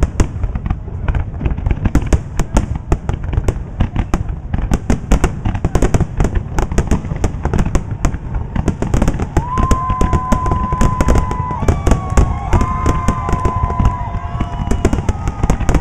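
Fireworks going off in a dense barrage: many sharp bangs and crackles several per second, with deep booms underneath. From a little past halfway, several long, steady high tones sound over the bangs for a few seconds.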